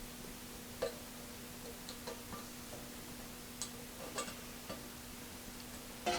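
Faint, irregular light clicks and taps, about eight in all with the loudest near the start, over a steady low electrical hum.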